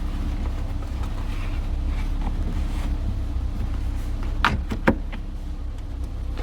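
Steady low rumble, with two sharp clicks close together about four and a half seconds in.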